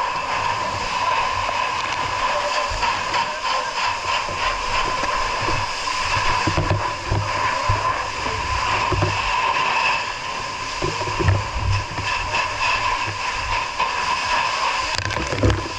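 Steady rushing hiss of fire hoses spraying water, with a constant high whine over it and irregular low thumps.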